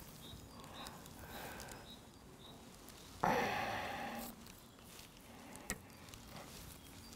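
Faint handling of raw stuffed veal breast as it is pushed down onto a metal vertical rotisserie spit, with one louder short rasping squelch about three seconds in that fades over a second, and a small click near the end.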